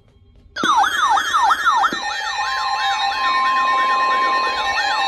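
Electronic emergency-alert siren that starts abruptly about half a second in, its pitch sweeping down and up about three times a second in several layers. Steady alert tones come in under it about two seconds in.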